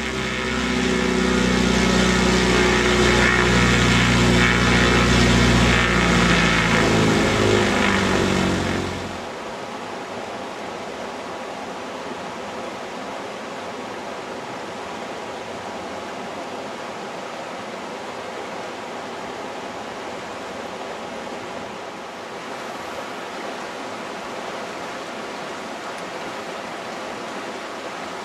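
A light bush plane's piston engine and propeller running loudly at close range, which stops abruptly about nine seconds in. After that only the steady rushing of a river.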